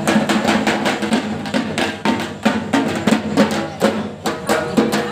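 Music driven by loud drumming, with many quick drum strikes over a steady pitched backing.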